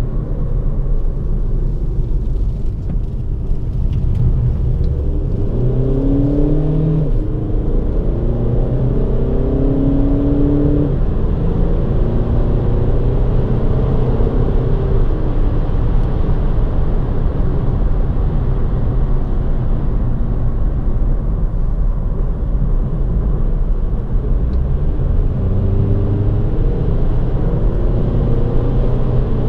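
Audi Q2's 2.0 TDI four-cylinder diesel heard from inside the cabin while driving, over steady tyre and road noise. Its note rises about six seconds in and shifts in steps a few times.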